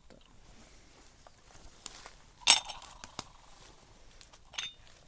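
Teaware being handled: one sharp clink about halfway through with a short ring after it, and a few lighter clicks and knocks around it.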